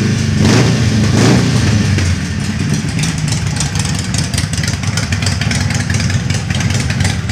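Harley-Davidson Sportster's air-cooled V-twin running through cocktail shaker mufflers, revved briefly twice in the first second and a half, then idling steadily.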